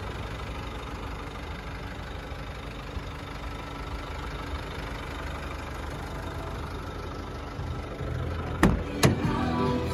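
Nissan Navara's 2.3 dCi four-cylinder turbodiesel idling steadily. Near the end, two sharp clacks as a front door is unlatched and opened.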